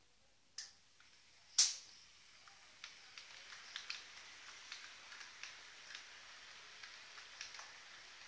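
H0-scale model freight train, a Piko Vectron BR 193 hauling wagons, running along the layout track. Two sharp clicks come in the first two seconds, the second the loudest, then a faint running hiss with irregular light ticks from the wheels over rail joints.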